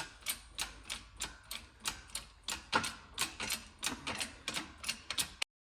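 Small hand-pumped hydraulic shop press working, a steady clicking about three times a second as it presses gears off a Muncie four-speed transmission mainshaft. The sound cuts off suddenly near the end.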